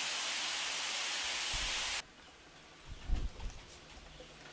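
A steady hiss that cuts off suddenly about two seconds in, followed by a few faint low thuds.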